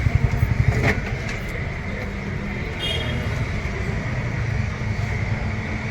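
A vehicle engine running steadily: a low rumble with a faint steady whine above it, and a couple of light clicks in the first second.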